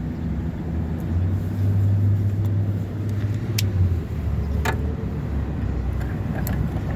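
A motor vehicle running with a steady low hum that steps up in pitch about a second in and drops back near the middle, with a few sharp clicks.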